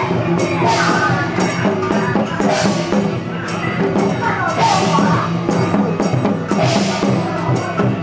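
Loud drum-and-cymbal music, with drum strokes packed close together, cymbal crashes about every two seconds and a wavering melody over it.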